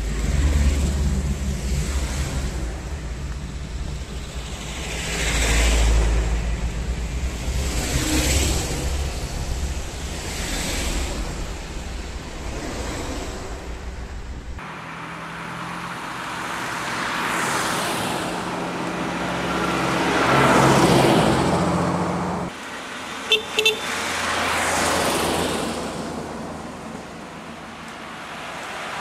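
Vintage cars driving past one after another, each one's engine and tyre noise swelling and fading as it goes by. Two short car-horn toots come in the later part.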